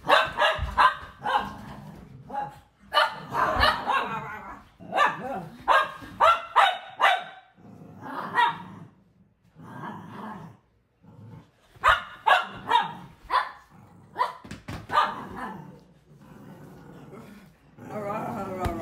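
Cavalier King Charles spaniels barking excitedly in quick bursts of several barks, with short pauses between: play barking, the dogs worked up by a peekaboo game.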